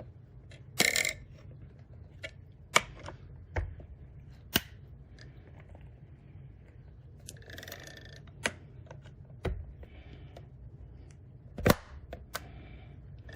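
Metal pry tools working into the seam of a Seagate Backup Plus Hub drive enclosure's plastic case: scattered sharp clicks and taps, with two short scrapes, about a second in and again near eight seconds.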